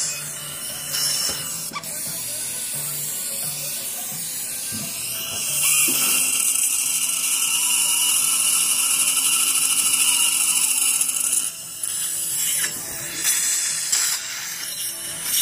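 Surgical implant drill handpiece running steadily for about six seconds, from about six seconds in, with a high hiss and a steady low whine. It is drilling the bone site for a dental implant. Quiet background music plays throughout.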